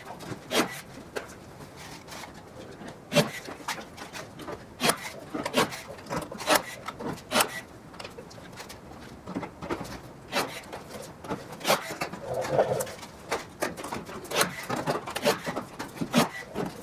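Irregular sharp clicks and snaps, about one or two a second, from hand tools working aluminium aircraft wing parts. A bird coos once about twelve seconds in.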